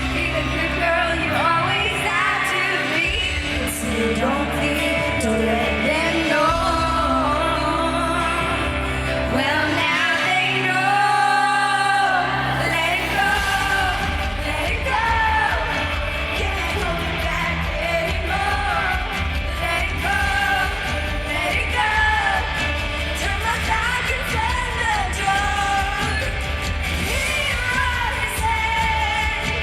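Pop song: a singer's voice carrying the melody over band accompaniment, with held low chords that change about 13 seconds in to a denser, driving beat.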